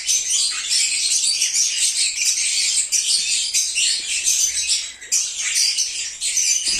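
A flock of lovebirds chattering and chirping, a dense, continuous jumble of high-pitched calls with a short lull about five seconds in.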